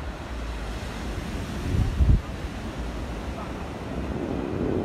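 Ocean surf washing up onto a sandy beach, with wind buffeting the microphone as a steady low rumble. A louder low rumble swells about two seconds in.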